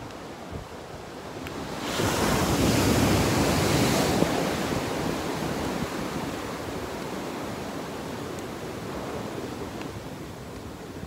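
Ocean surf washing with a steady rush, with wind on the microphone. A louder swell of surf rises about two seconds in and slowly dies away.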